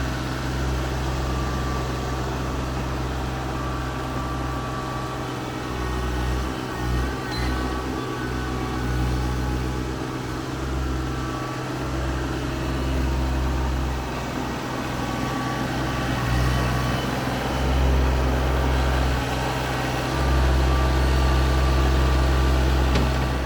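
TYM T25 compact tractor's diesel engine running steadily while the backhoe digs, its level swelling and easing as the load changes.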